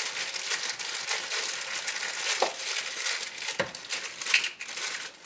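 Plastic bag crinkling and rustling as bottle caps are shaken and worked out of it, with light clicks and rattles from the caps.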